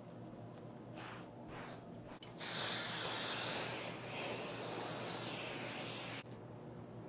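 Aerosol can of 505 temporary spray-basting adhesive hissing. Two faint short bursts come first, then one long spray of about four seconds that cuts off sharply.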